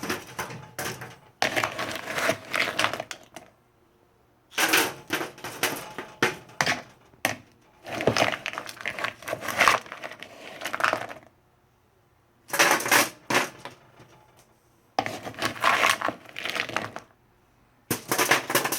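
Seasoned frozen butternut squash cubes being spread over a foil-lined baking sheet, making bursts of rattling, crinkling clicks with short pauses between them.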